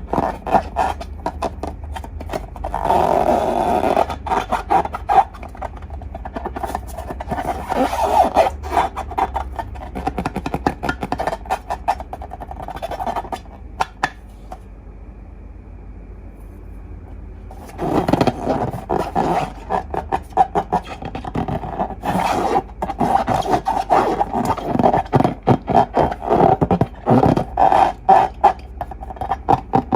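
Slime and balloons worked by hand, giving dense runs of sticky crackles, squishes and rubbing squeaks, with a pause of a few seconds midway.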